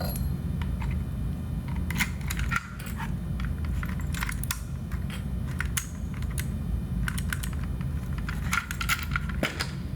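Keys jingling and sharp metallic clicks, irregular and scattered, as a key is worked in a newly installed Detex EAX-300 lock cylinder to check that it operates.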